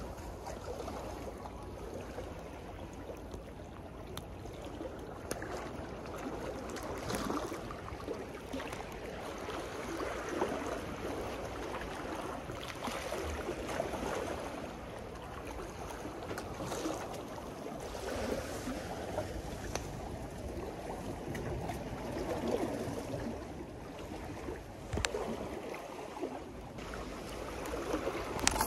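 Sea water lapping and splashing against a seawall: an uneven wash of small waves that swells and fades every few seconds, with a few short clicks.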